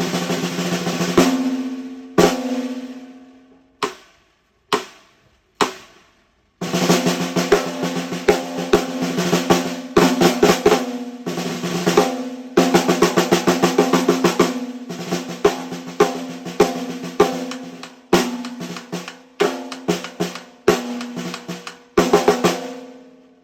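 A PDP 14 x 6.5 inch snare drum being played: a few single strokes left to ring out over the buzz of the snare wires, then, after a short gap, fast rolls and runs of strokes. It ends on one hit that rings away.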